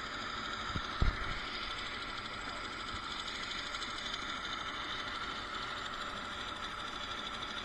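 Small turbine helicopter's engine running steadily at idle, a constant whine and rush. A single sharp thump about a second in.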